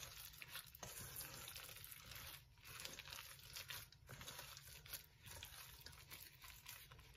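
Faint, irregular squishing of raw ground turkey meatloaf mix being kneaded by hand in a stainless steel bowl, with crinkling from the thin plastic gloves.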